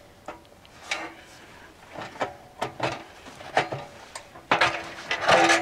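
Steel pipe legs being fitted into the leg sleeves of a sheet-steel wood-burning camp stove: a series of separate light metal clinks and knocks, with a denser, louder run of metal clatter near the end as the legs seat.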